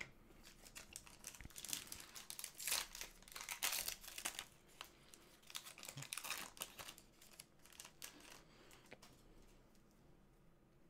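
Trading card pack wrapper crinkling and tearing as the pack is opened, in faint, irregular bursts that are loudest three to four seconds in.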